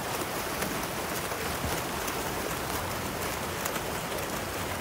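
Open-water swimmers' freestyle strokes splashing close by as a pack rounds a buoy: a steady, dense splashing of water.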